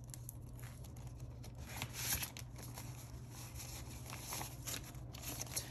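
Paper dollar bills rustling and crinkling in quick, irregular handfuls as they are pulled from a clear binder pocket and fanned and counted by hand.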